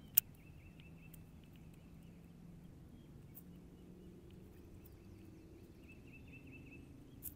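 Quiet lakeside ambience with a faint, repeated high chirping trill from a small animal, plus a sharp click just after the start and a softer one near the end.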